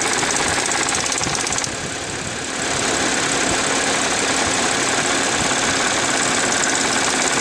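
Audi A6 C6 3.0 TFSI V6 engine running cold, with an extraneous noise that swells and fades in waves, coming from the left rear side; it dips briefly about two seconds in and comes back. The noise occurs only on a cold engine, and its cause is not yet known.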